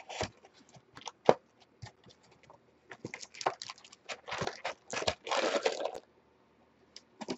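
A cardboard trading-card box being opened by hand and its foil-wrapped packs handled: scattered clicks and taps, then a stretch of rustling and tearing about three to six seconds in as the box is opened and the packs are slid out.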